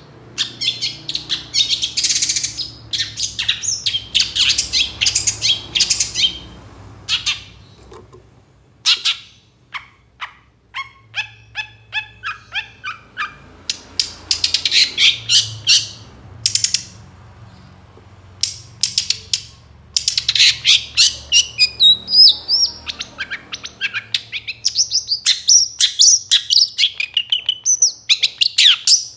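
Long-tailed shrike singing a loud, varied song: harsh scratchy notes, a run of rapid chattering notes in the middle, and fast twittering phrases toward the end.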